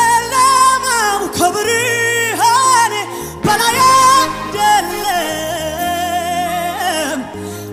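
A woman singing an Amharic gospel song live into a microphone, backed by a band through the PA. The melody has several long held notes, the later ones with vibrato.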